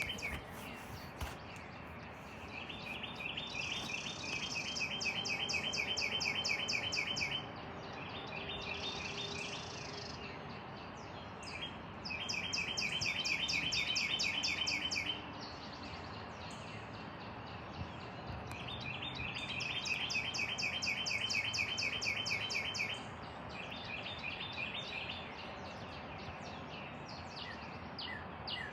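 Birds calling in rapid trilled phrases of high, evenly pulsed chirps, each phrase lasting two to three seconds and repeating several times over a steady background hiss.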